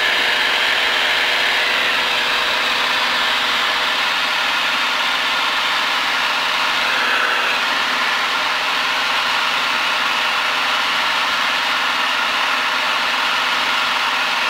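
Single-engine propeller plane's engine and propeller droning steadily in cruise, heard from inside the cabin.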